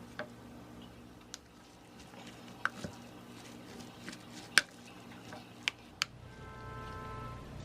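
Scattered clicks and clinks of kitchen utensils and dishes, about eight in all, the loudest a sharp clink about four and a half seconds in. Soft background music comes in near the end.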